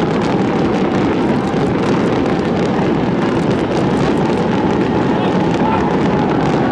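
Large crowd chatter: a steady, dense din of many voices talking at once, with no loud bangs.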